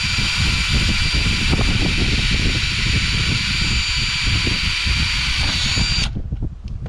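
Electric drill running steadily with a high whine, its bit boring into aluminum angle. It stops suddenly about six seconds in.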